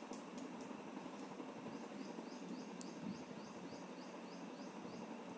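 A small bird chirping over and over in short high notes, about three or four a second, with a brief pause about a second in, over a faint steady background hiss.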